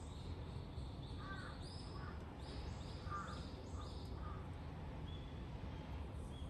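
Birds calling: a run of short, high, even-pitched notes about two a second, with a few lower, rougher calls among them, over a steady low outdoor rumble.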